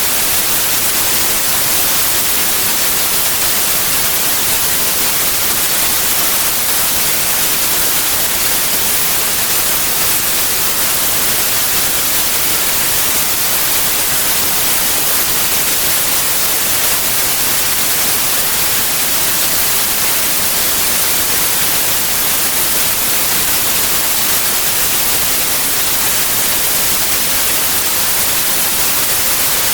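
Steady white noise: an even, unbroken hiss with no change in level, strongest in the high end.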